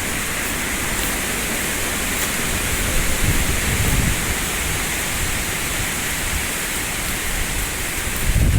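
Strong wind blowing through eucalyptus trees: a steady rushing hiss of the leaves, with low rumbling gusts on the microphone about three to four seconds in and again near the end.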